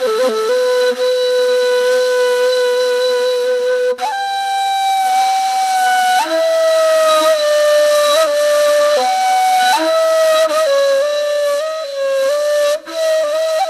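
Solo flute-like wind instrument playing a slow melody: one long held note for about four seconds, then a higher note and a stepping line of shorter notes.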